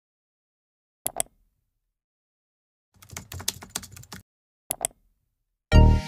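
Typing sound effects for an on-screen search: a mouse click, about a second of rapid computer-keyboard keystrokes, then another mouse click. Near the end, music with a heavy bass beat starts abruptly.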